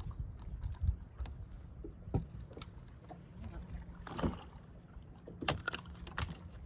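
Scattered clicks, knocks and rattles of fishing gear and the boat as a hooked bass is landed by hand, loudest in a short cluster near the end, over a low steady hum.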